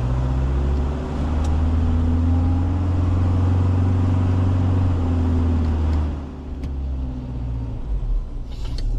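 Four-wheel-drive's engine running under load as the vehicle drives, a steady low drone that rises slightly in pitch about a second in. About six seconds in it eases off and the drone drops away.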